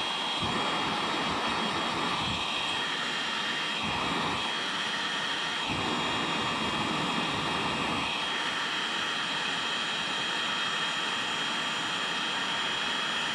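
Electric heat gun running, a steady rush of blown air with a constant high whine, as it heats a cracked plastic kayak hull and a plastic welding rod to weld the crack.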